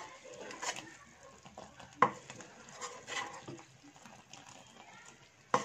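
Jaggery syrup faintly bubbling in a metal saucepan as it is cooked down to two-string consistency, stirred with a wooden spatula. Two sharp knocks of the spatula against the pan come at the start and about two seconds in.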